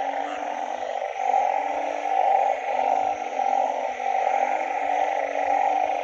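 A chorus of frogs calling after rain: many overlapping calls make a steady, dense din, with lower drawn-out calls swelling and fading about once a second.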